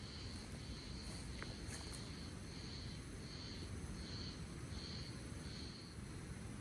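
An insect calling in short, high-pitched pulses, about three every two seconds, which stop about a second before the end, over a low steady rumble.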